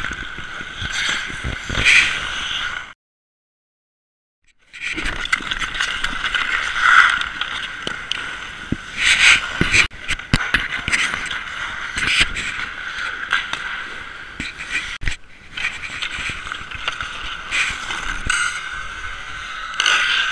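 Ice hockey skates scraping and carving on rink ice, with sharp clacks of sticks on pucks, over a steady high hum. The sound drops out completely for about two seconds near the start.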